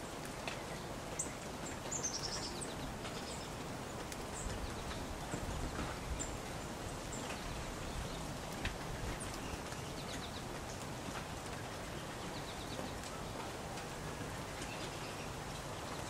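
American goldfinches chirping at a seed feeder: short, high calls scattered through, with a quick run of notes about two seconds in, over a steady background hiss.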